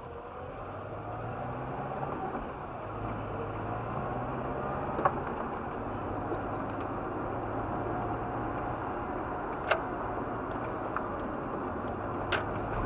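Car engine and road noise heard from inside the cabin as the car pulls away and speeds up, growing louder over the first couple of seconds. A few sharp clicks or ticks come through, about five, ten and twelve seconds in.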